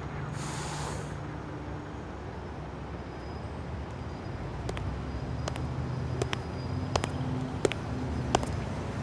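A steady low hum, with a short burst of hiss about half a second in, then sharp clicks at uneven spacing, one or two a second, from about halfway on.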